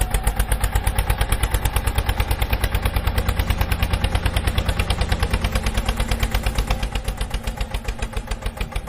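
Tractor engine running at a steady idle-like chug, a rapid even train of beats.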